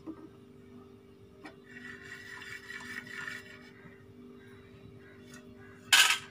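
Steel cooking pot being taken off a gas stove burner: a low hum and faint scraping, then near the end a short, loud metal clatter as the pot comes off the grate.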